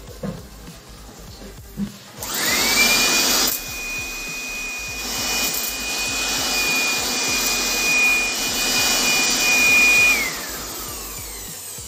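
Corded handheld electric air blower switched on about two seconds in, its motor whine rising quickly to a steady high pitch with a rush of air. It runs for about eight seconds, then the whine falls away as it is switched off.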